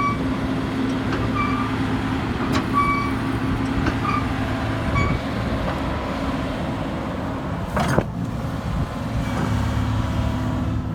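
Kobelco SK250LC excavator's diesel engine running steadily, with short high tones now and then and a single sharp knock about eight seconds in.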